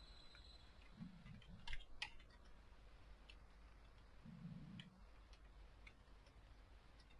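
Near silence with a few faint, sharp computer mouse clicks spread through it.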